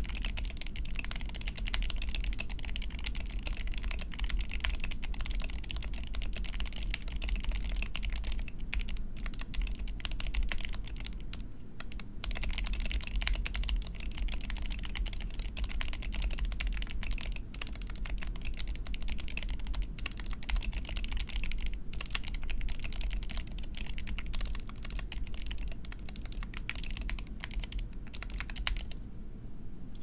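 Fast typing on a GK61 mechanical keyboard with lubed Gateron Optical Yellow linear switches: a dense, unbroken run of key clicks at about 100 words per minute, with a couple of brief pauses. The typing stops about a second before the end.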